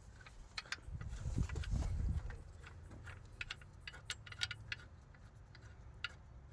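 Scattered light metallic clicks and taps as a mounting bolt is handled and fitted into an alternator bracket on a car engine, with a low rumble of handling noise in the first two seconds.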